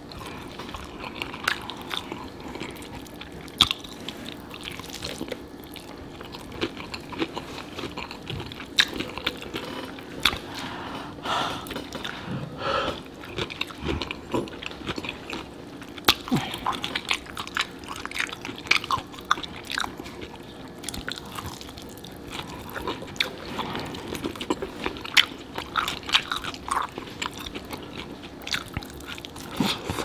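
Close-miked eating of sauce-covered fried chicken drumsticks: biting, tearing and chewing, with frequent sharp mouth clicks and smacks throughout.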